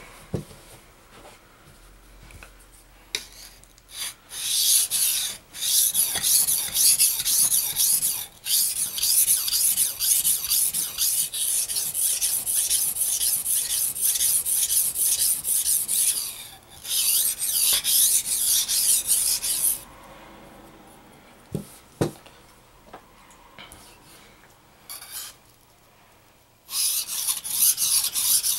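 Steel knife blade being stroked across a 400-grit coarse whetstone, a long run of rasping scrapes with brief gaps, setting a new edge on a blade that has just been dulled. About two-thirds of the way through, the strokes stop for several seconds with a few light clicks, then resume near the end.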